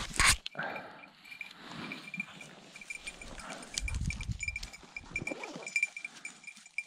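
An English setter bird dog moving about close by, with a steady high tinkling pulsing at one pitch and a loud sharp knock about a quarter second in.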